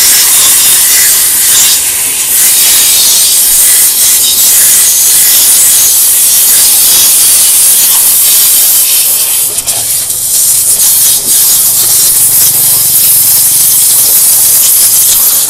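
High-pressure water jet from a DEKTON DK-HPW3500W industrial pressure washer, hissing steadily as it blasts the engine casing and rear wheel of a scooter.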